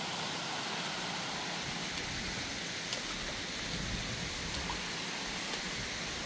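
Shallow creek water running steadily over small sandstone ledge cascades, a continuous even rush with a few faint ticks.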